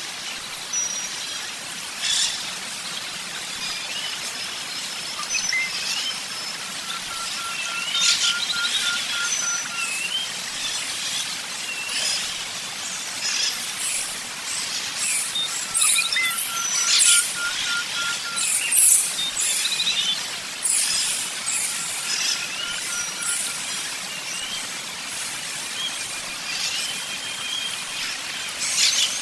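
Several birds chirping and singing together: short upward-sweeping whistles, high rapid trills, and a lower, evenly pulsed trill that comes back every several seconds.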